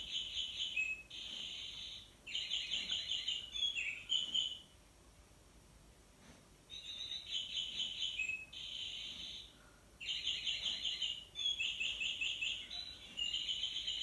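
Bird-song wall clock sounding the hour: a recorded songbird's song played through the clock's small speaker, quick trilled phrases repeated in bouts. It pauses for about two seconds about five seconds in, then starts again.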